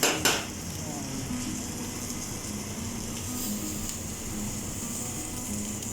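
Chicken fajitas sizzling on a hot sizzling plate: a steady hiss, with a sharp knock of the plate or a utensil right at the start.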